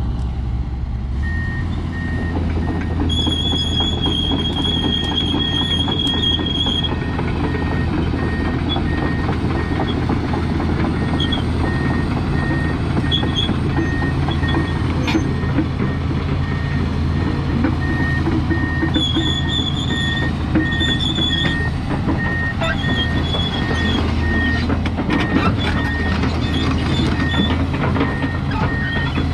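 Komatsu PC400LC-8 hydraulic excavator's diesel engine running under load as the machine travels on its tracks. Its travel alarm beeps about twice a second, stopping for a few seconds midway and then starting again. High squealing tones come and go, near the start and again about two-thirds of the way through.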